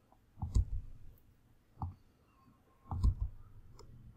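Computer keyboard key presses in a few small, irregular groups of clicks, as text is deleted and edited.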